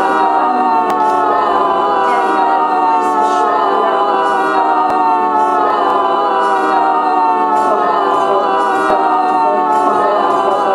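Dense looped vocal layers from an Electrix Repeater: many overlapping recorded voices build a steady, choir-like drone. The whole mass slowly slides down in pitch, with the hiss of spoken consonants coming through at intervals.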